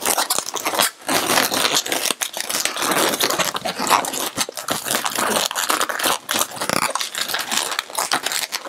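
Latex 260 modelling balloons squeaking and rubbing against each other as a long black balloon is twisted and wrapped into white balloon loops.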